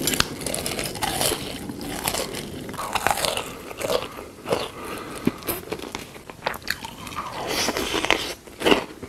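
Close-miked eating sounds: someone biting and chewing crunchy food, a run of irregular crunches.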